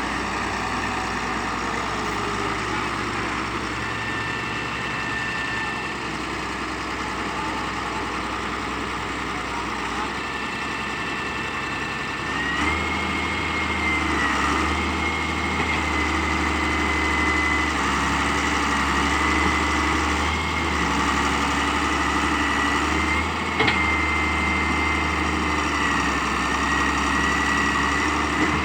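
Excavator's diesel engine running with a steady high whine; about halfway through the engine speeds up and grows louder under working load, its pitch dipping and rising slightly as it works. A single sharp knock sounds about two-thirds of the way through.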